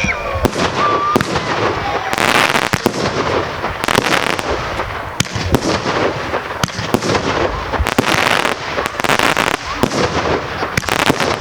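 Fireworks display going off: a rapid, uneven run of bangs and crackling, with denser hissing crackle swelling about two seconds in and again around eight to nine seconds. A short whistle sounds about a second in.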